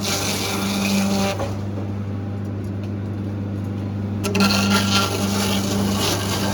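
Machinery running with a steady low hum. A rough scraping, rubbing noise rides on top of it, drops away about a second and a half in, and comes back about four seconds in.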